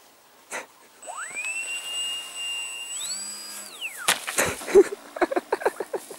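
Electric motor and propeller of a small foam RC plane spinning up with a rising whine, holding steady at full throttle, stepping higher in pitch and then winding down. A quick run of short rustling steps through dry grass follows.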